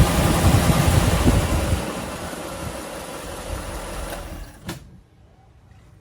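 1957 Mercury 368 V8 engine running, the engine that knocks in its number 7 cylinder. About two seconds in the running sound drops away and fades out over the next few seconds, and a single sharp click follows near the end.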